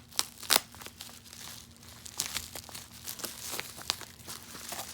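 Packing material being unwrapped by hand: crinkling and rustling broken by sharp crackles, the two loudest in the first second.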